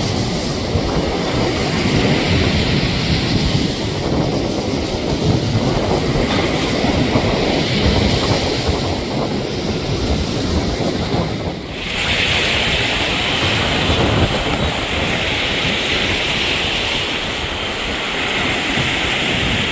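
Wind buffeting the microphone over a steady rush of surf. About twelve seconds in the sound changes abruptly, and a steady higher hiss joins it.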